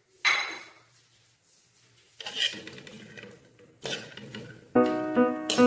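Metal spatula scraping and knocking against an aluminium karahi of chopped raw onions, in three short noisy strokes. Background music comes in near the end.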